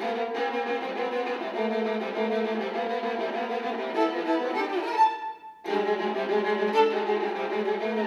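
Viola played with the bow, sustained notes in several lines at once. It breaks off briefly a little after five seconds in, then resumes.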